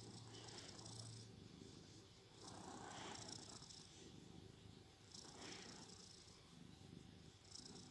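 Domestic cat snoring softly in its sleep, taking a breath about every two and a half seconds, each one a faint hiss.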